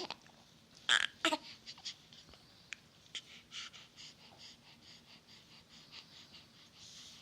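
Two short, sudden hiccups about a second in, then soft, quick, breathy sniffs and breaths.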